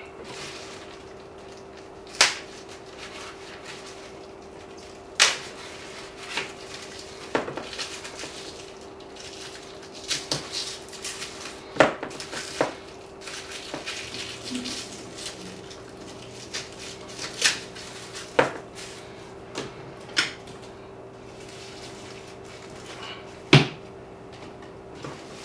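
Handling noises from unwrapping a new leather bag: scattered sharp clicks and knocks with rustling as the protective wrapping is pulled off its handles, over a faint steady hum.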